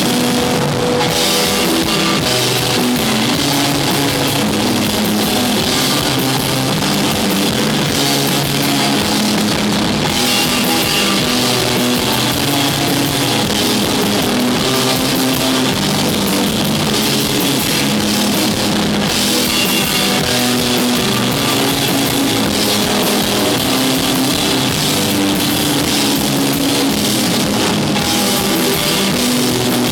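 A rock band playing live, with drum kit and electric guitar going steadily and loudly.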